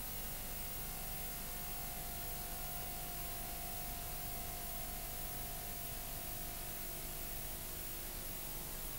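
Steady hiss and low hum from a VHS tape playing a silent copyright-warning section, with a faint steady tone fading in about a second in and out near the end.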